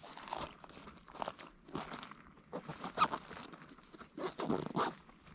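Irregular crunching and crinkling rustles, a dozen or so short handling noises in uneven bursts.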